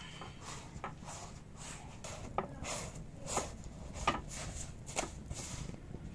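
Wood fire burning in a clay stove under a roti, with a low steady rumble and irregular sharp crackles and pops, about one a second.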